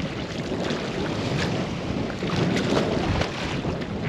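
Wind rushing on the microphone over water noise around a small boat, a steady haze with a few faint clicks.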